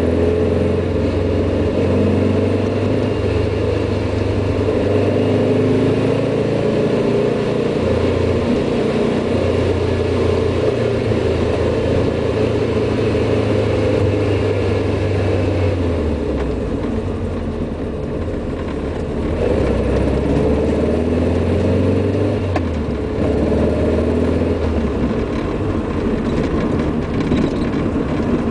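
Classic car's engine heard from inside the cabin, driven hard uphill: it runs loudly under load, its pitch stepping up and down several times as it is worked through the gears, with a short easing off about two-thirds of the way through.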